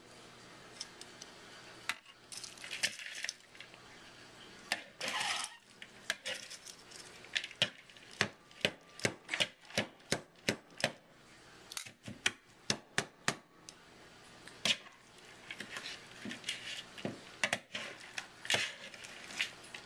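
Metal kitchen tongs tossing cooked pasta in a mixing bowl: a run of sharp clacks, quickest in the middle, with soft rustling scrapes between.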